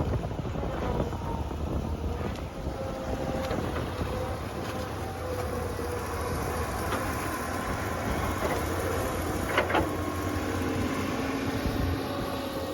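Heavy machine engine running steadily, with a wavering whine over it and a sharp clank about ten seconds in.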